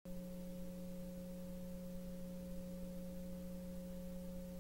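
Faint, steady electrical hum: a low buzzing tone with fainter higher tones above it, the mains buzz of an idle audio line.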